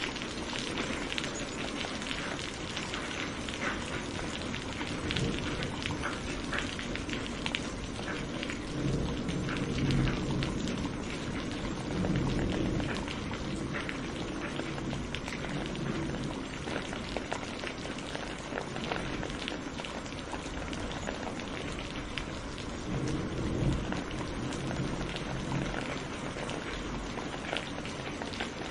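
Steady rain falling, with many separate drops ticking close by and a low rumble that swells up three times.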